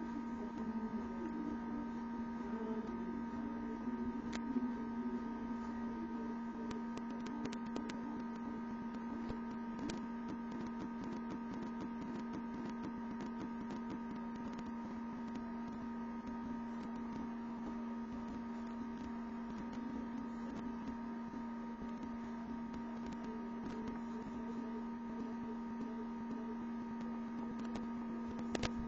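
Steady electrical hum made of several fixed pitches, with scattered faint ticks, most of them about a quarter to a third of the way in.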